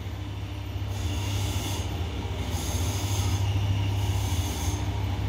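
Steady low machine hum, with a high hiss that swells and fades every second or so.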